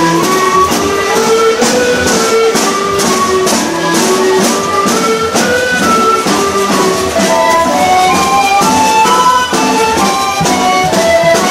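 Instrumental music: a melody over a steady beat.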